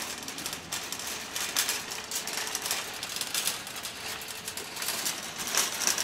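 Metal shopping cart rattling as it rolls across a smooth concrete floor, an irregular stream of clicks and clatters.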